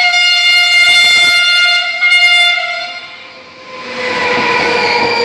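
Electric train's horn: one long blast of about two seconds, then a short second blast, as the train comes out of the tunnel into the station. After that the train rumbles past the platform, the noise building with a faint motor whine.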